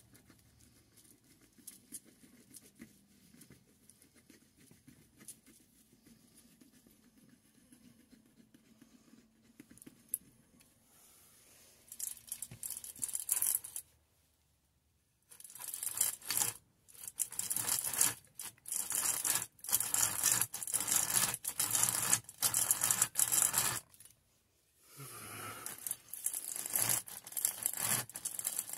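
A restored Stanley hand-cranked drill boring into OSB board: after a quiet start, the bit rasps and crunches through the wood chips in rapid bursts, with two short pauses.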